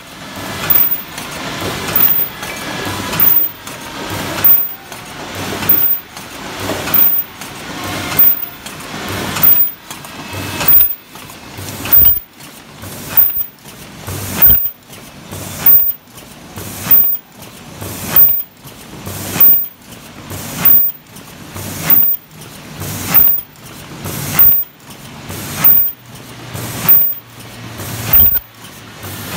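Paper popcorn-bucket forming machine running in steady cycles, each one building up to a sharp mechanical clunk about once a second.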